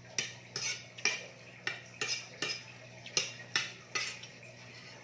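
Metal spoon clinking and scraping against a serving plate as food and broth are scooped, about ten quick clinks over four seconds.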